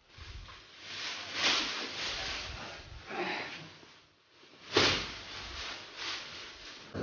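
Thin red plastic bags rustling and crinkling in irregular bursts as slabs of raw pork belly are pulled out and handled, with one louder rustle about five seconds in.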